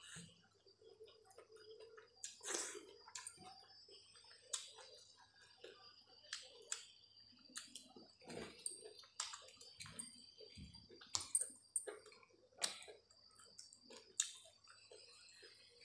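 Eating rice and curry by hand from a steel plate: wet squishing as fingers mix and scoop the rice, with chewing and lip smacks. Sharp clicks and smacks come at irregular intervals throughout.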